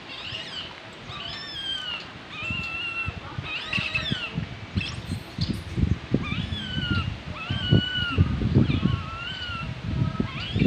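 Baby long-tailed macaque crying in a string of high, wavering whimpers, about one a second, as it is kept from suckling. Low, uneven rumbling sits underneath and grows louder about halfway through.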